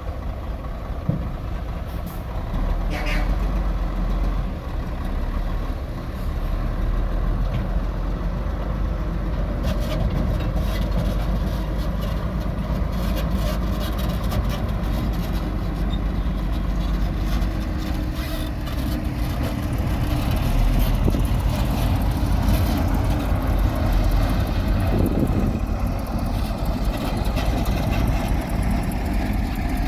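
Heavy diesel earthmoving machinery running with a steady low rumble; from about ten seconds in, rapid clanking and rattling joins it.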